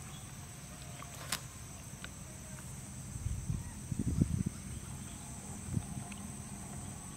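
Outdoor ambience: a steady high-pitched insect drone over a low rumble, with a sharp click near the start and a few soft thumps about three to four and a half seconds in.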